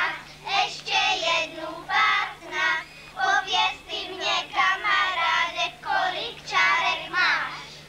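A group of children singing in short rhythmic phrases with brief breaks, over a faint steady low hum.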